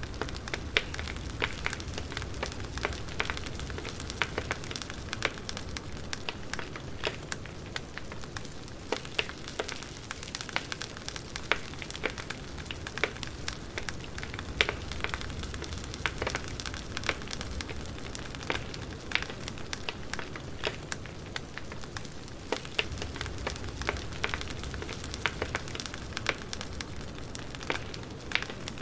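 Campfire burning with steady crackling: many sharp, irregular pops and snaps over a soft hiss and a low rumble of flames.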